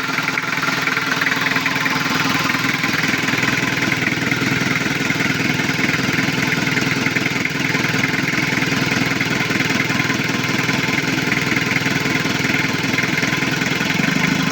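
Toyota 3L four-cylinder diesel engine of a 1991 Hilux idling steadily and smoothly. It is a little noisy because the intake pipe to the air cleaner is not connected.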